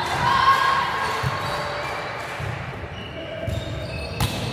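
Volleyball rally in an echoing sports hall: the ball is struck back and forth, with thuds and a sharp, loud hit about four seconds in. Brief squeaks and short calls come in between.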